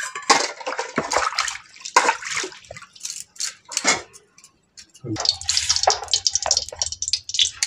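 Steel bowls and utensils clinking and scraping against each other and the floor. About five seconds in, a steady low rumble with crackling hiss starts up: a gas stove burner lit under a wok of oil.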